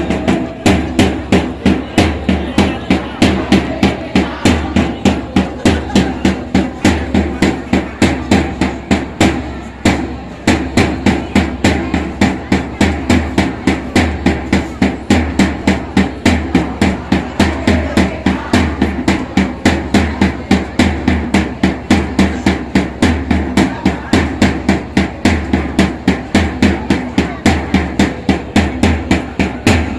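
Steady, fast drumbeat: sharp, even hits about three or four a second without a break, over a low steady hum.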